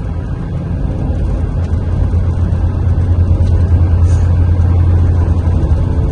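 Scania truck driving at highway speed: a steady low drone of diesel engine and road noise, growing a little louder about halfway through.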